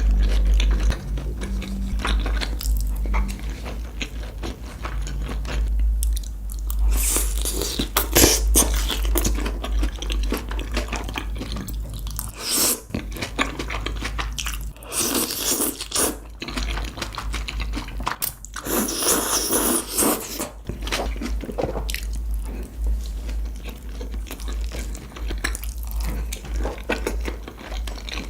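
Close-miked eating of a crispy breaded pork cutlet (tonkatsu): loud crunching bites and chewing, with the biggest crunches about seven, fifteen and nineteen seconds in.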